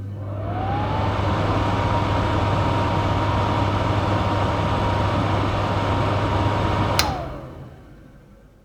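Stove extractor fan spinning up, its whine rising over the first second, then running steadily over a low motor hum. About seven seconds in it is clicked off, and the whine falls as the fan winds down and fades away.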